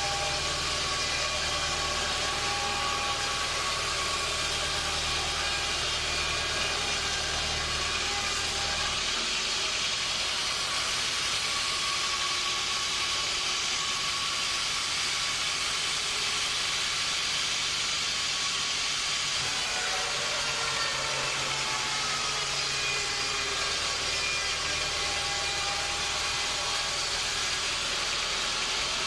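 Sawmill machinery running steadily, a continuous mechanical noise with a few steady tones; a low hum drops away about nine seconds in and the sound shifts again near twenty seconds.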